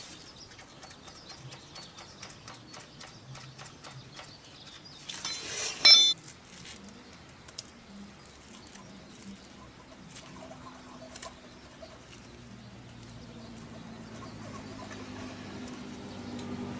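A ratchet wrench clicking in quick, even strokes as the crankshaft of a 750cc four-cylinder motorcycle engine is turned by hand, bringing cylinders 1 and 4 to top dead centre for a tappet check. About five seconds in, a short rising rasp ends sharply; it is the loudest sound. A low vehicle engine hum builds near the end.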